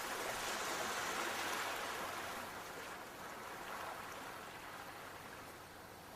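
Sea waves washing on a shore, a wave's rush loudest in the first couple of seconds and then slowly ebbing away.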